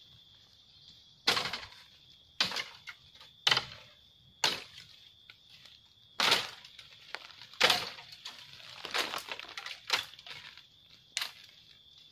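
Footsteps crunching on dry leaf litter, with twigs and stems cracking as someone pushes through forest undergrowth: about ten sharp cracks at uneven intervals. A steady high-pitched hum runs beneath.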